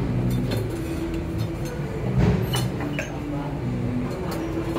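Glass and dishware clinking in a few short, sharp knocks at a self-service drink counter, over a steady murmur of restaurant background noise.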